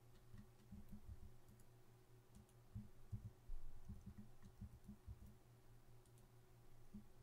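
Near silence: a steady low room hum with faint, scattered computer mouse and keyboard clicks.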